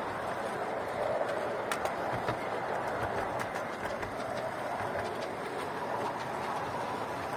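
Ride-on 5-inch gauge miniature train running along its track: a steady rolling rumble of wheels on rails, with scattered sharp clicks.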